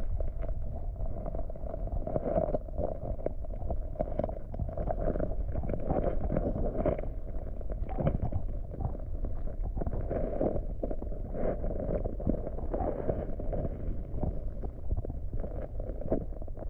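Muffled underwater sound of river current heard through a submerged camera: a steady low rumble with frequent small clicks and knocks.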